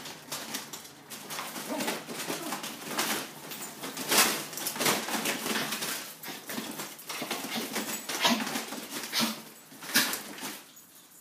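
Puppies moving about inside a dog food bag: the bag crinkles and rustles in irregular bursts, stopping near the end.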